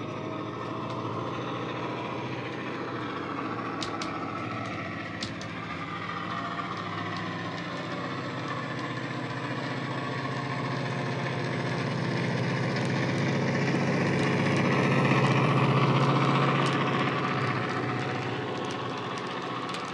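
Model Class 68 diesel locomotive's DCC sound decoder playing a Class 68 engine sound through a bass-heavy EM2 speaker, the engine note rising and falling, with the model's wheels and wagons running on the track. It gets louder as the locomotive approaches and passes, loudest about three-quarters of the way through, then eases off.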